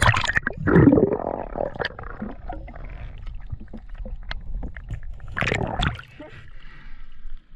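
River water splashing and gurgling as the camera dips under and breaks the surface, with muffled underwater sound and small clicks between. Loud splashes come about a second in and again about five and a half seconds in.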